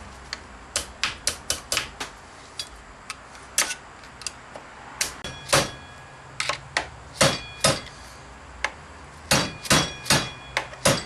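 Screwdrivers and a steel snap ring clicking and tapping against the clutch drum and return-spring retainer of an automatic transaxle as the snap ring is worked into its groove. The clicks are sharp and irregular, in quick runs, and a few ring briefly like struck metal.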